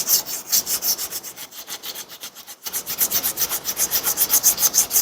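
Quick back-and-forth scuffing strokes, about six or seven a second, on the top of a flat-top piston in a small-block Chevy V8, done to bring out its stamped oversize number. The strokes break off briefly about halfway through, then resume.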